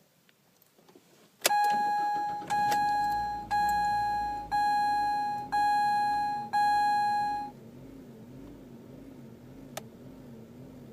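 A car's dashboard warning chime dings six times, about once a second, then stops. Under it and after it, the 2002 Mazda Protege5's 2.0 L engine runs at idle with a low note that wavers up and down about once a second. This is the rough idle that plug and wire changes have not fully cured; the code reader points to the mass airflow sensor.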